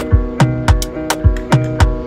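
Background music: an instrumental passage with a plucked guitar riff over a steady, evenly repeating drum beat.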